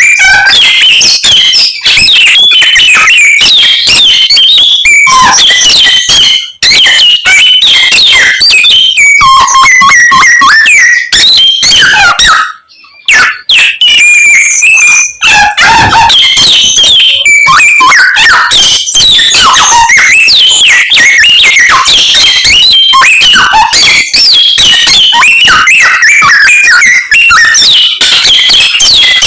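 Samyong songbird singing a rapid, unbroken medley of whistles, chirps and trills mimicking the calls of many other birds, pausing briefly about halfway through.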